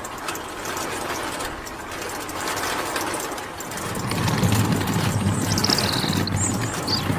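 A small tractor engine running with mechanical clatter, louder in the second half, with a brief high falling squeal about six seconds in.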